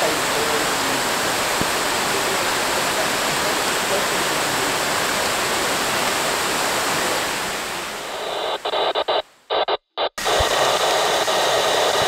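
Heavy rain falling steadily, fading out about eight seconds in. Then a choppy digital glitch effect: a harsh hiss that stutters and cuts in and out abruptly.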